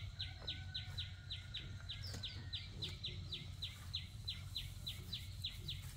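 A bird repeating a short, high, falling call over and over, about three to four times a second, over a low steady hum.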